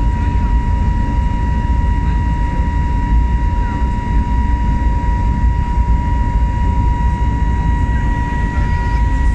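Passenger-cabin noise of an airliner climbing after takeoff: a loud, steady low roar of engines and airflow with a constant high whine running through it.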